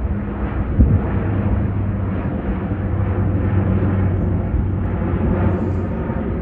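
Jet airliner engines rumbling steadily, with a constant low hum under the roar.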